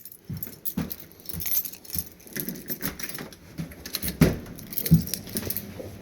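Irregular clicks, knocks and rattling from someone moving about and handling things, with louder thumps about four and five seconds in.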